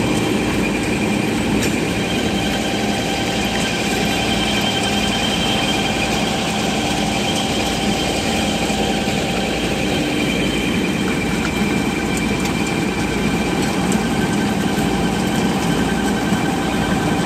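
Road cold-milling machine at work on asphalt: its diesel engine and cutting drum make a loud, unbroken mechanical din with steady whining tones running through it.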